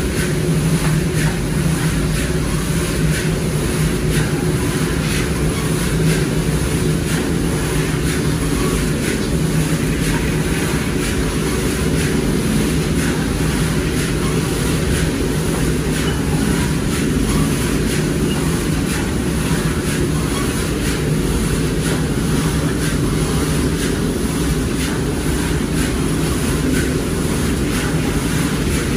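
A steady low mechanical rumble under many small irregular clicks: roasted black chickpeas rattling in a wooden wire-mesh sieve as it is shaken over a metal pan.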